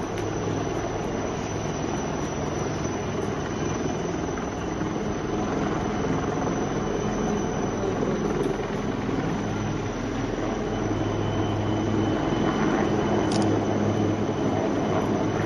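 Helicopter running, a steady drone of rotor and engine, growing a little louder near the end.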